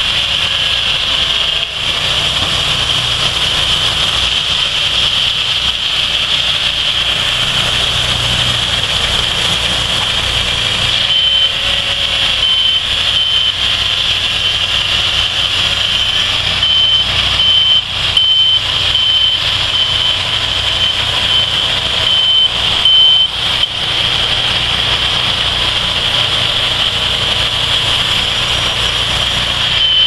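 Several portable bandsaw sawmills running at once: engines and blades cutting logs, a loud steady din with a high whine over a low engine rumble. Partway through, a repeated beep like a backup alarm sounds over it for about twelve seconds, then stops.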